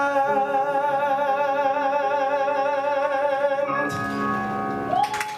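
Male singer holding the final note of a show tune with a wide vibrato over sustained accompaniment. The voice stops a little under four seconds in while a closing chord holds on, and a few sharp claps come right at the end.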